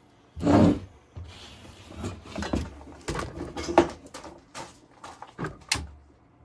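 A short loud sound about half a second in, followed by scattered knocks and clunks of handling; no chainsaw is running.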